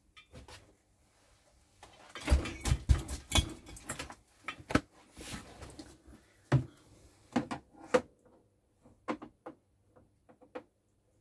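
Philips GR1AX television's plastic cabinet being handled on a wooden workbench: a burst of knocks and clunks about two seconds in, then scattered sharp clicks and taps.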